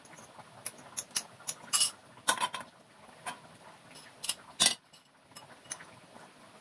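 A spatula and a spoon clinking against a small bowl as curry is scooped into it: a dozen or so sharp, irregular clinks, the loudest about two seconds in and again about four and a half seconds in.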